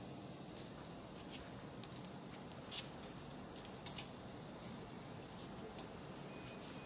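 Clothes hangers clicking and clacking on a rack rail as garments are pushed along it by hand. Scattered light clicks over a steady background hum, with two sharper clacks about four seconds in and another near six seconds.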